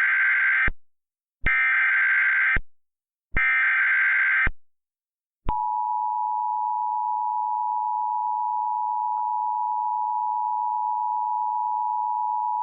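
Emergency Alert System tones: three short bursts of SAME header data, each about a second long, then about five and a half seconds in the steady two-tone EAS attention signal (853 and 960 Hz) starts and holds.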